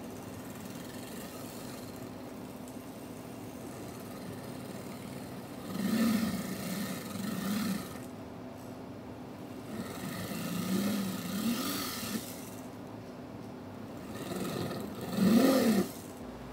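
Jeweler's flex shaft drill spun up three times, its burr grinding gem-seat holes into a germanium silver ring; each burst rises and falls in pitch, the last the loudest, over a steady low hum.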